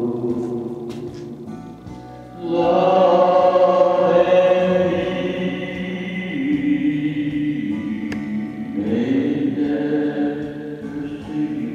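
Vocal music with choir-like singing in long held notes, swelling louder about two and a half seconds in.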